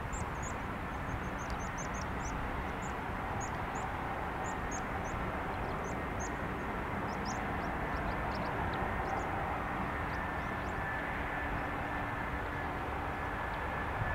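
Distant Airbus A320 jet airliner on approach to land, a steady far-off engine rumble and hiss. A string of short, high chirps sounds over it for most of the first ten seconds.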